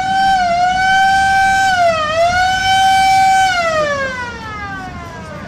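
A siren wailing: it winds up, holds a steady pitch with two brief dips, then winds down and fades.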